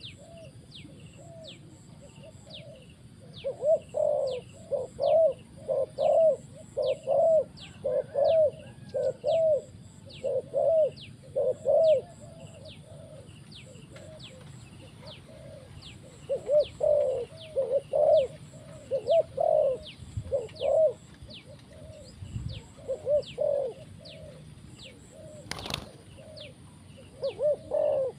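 A decoy spotted dove cooing in runs of short repeated coo phrases, with pauses between the runs. A thin high note repeats about twice a second throughout, and a single sharp click comes near the end.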